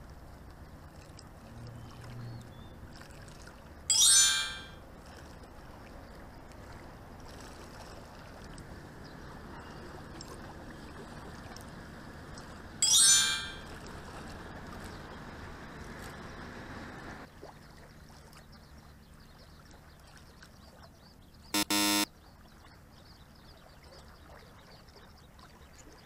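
Short bright chime sound effects ring out twice, each fading quickly. A brief buzzer-like tone sounds twice in quick succession later on. Beneath them runs a steady background of water lapping and wind at a seawall, which drops in level after a cut.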